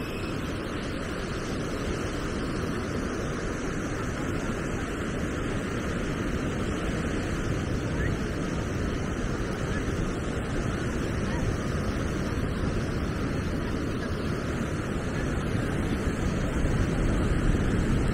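Beach ambience: steady wash of surf with wind rumbling on the microphone and faint voices of people around. The wind rumble grows louder near the end.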